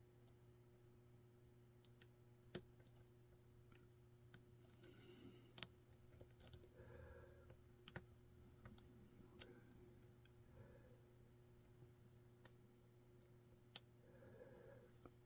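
Faint, scattered clicks of lock picks working the pins of a Mul-T-Lock Junior pin-in-pin cylinder, with four sharper ticks standing out, over a low steady hum.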